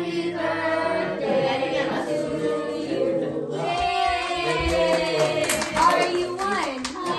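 A group of voices singing a birthday song together in chorus around a lit birthday candle, with a few claps near the end.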